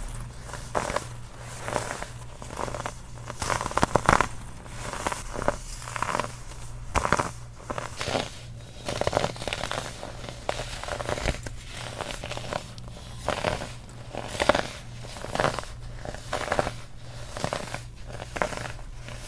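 Baking soda being crushed and crumbled, crunching again and again at about one or two crunches a second.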